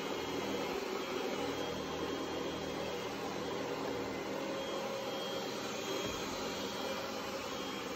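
Ecovacs Deebot T9 robot vacuum running while it cleans, its suction motor making a steady whirring hum.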